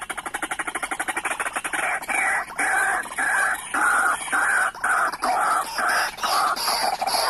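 White-breasted waterhen calling: a fast run of clucking notes that settles after about two seconds into repeated calls, roughly two a second.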